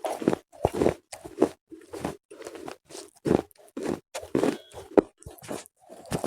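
Slate bars being bitten and chewed close to the microphone: a string of irregular, crisp crunches, roughly two a second.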